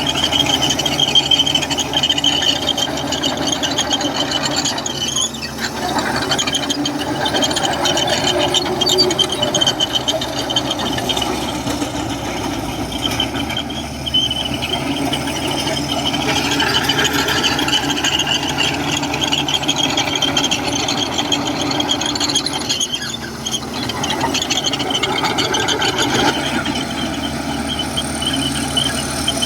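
Komatsu crawler bulldozer working: its diesel engine running steadily under load while the steel tracks give a continuous high-pitched squeal, dipping briefly twice.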